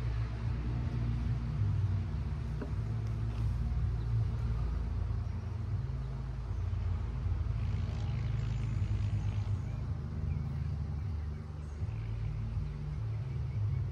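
Honeybees buzzing around an opened hive, a low steady drone.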